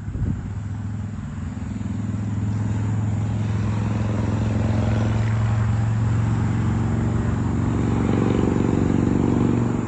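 Six-cylinder Duramax diesel engine of a 2023–24 Chevrolet Silverado running through an aftermarket stainless-steel exhaust: a low, steady rumble that grows louder over the first few seconds and then holds, called strong.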